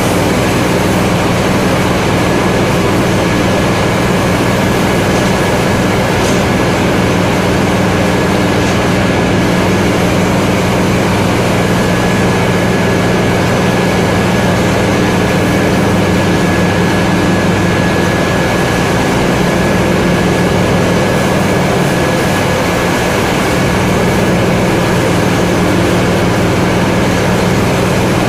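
Flour bag-packing machine and surrounding mill machinery running, a loud steady drone with a low hum and a thin, faint high whine above it.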